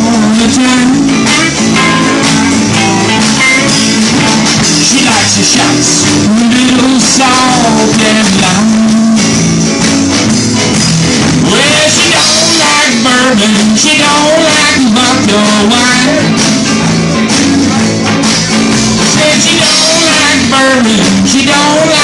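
Live rock band playing loud, with electric guitars, bass and drums.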